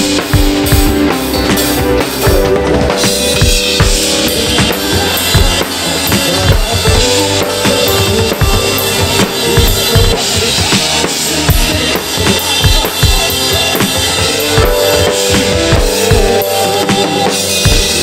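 Drum kit played with sticks in a busy groove: bass drum, snare and cymbals, with sustained pitched notes sounding under the drums. The cymbals wash brighter from about three seconds in.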